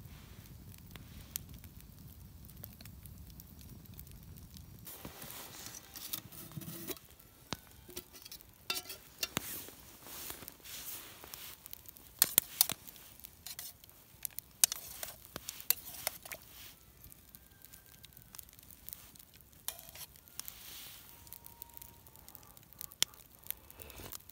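Food sizzling in a pan over a campfire, with scattered sharp clicks and knocks of utensils and handling, a cluster of the loudest knocks about halfway through.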